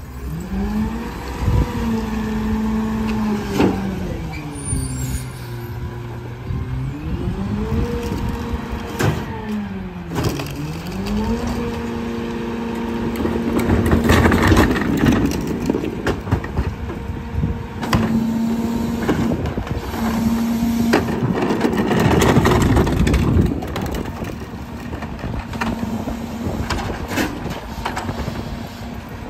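Mack MRU garbage truck's diesel engine revving up and dropping back twice, then held at a raised speed while the Powertrak rear-loader packer runs its hydraulic compaction cycle. Loud crunching of trash being compacted in the hopper comes in twice near the middle and later on.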